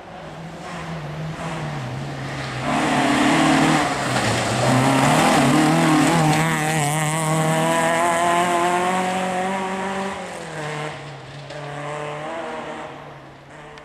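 Peugeot 106 rally car engine at high revs as it passes close by on a forest stage. The engine note climbs steadily, drops sharply about ten seconds in as the driver lifts off, and fades as the car drives away.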